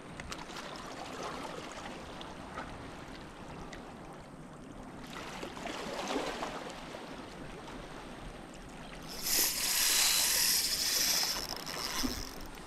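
Spinning fishing reel being cranked to retrieve a topwater lure, a low mechanical clicking over the wash of shallow water. About nine seconds in, a loud rushing hiss lasts roughly two seconds.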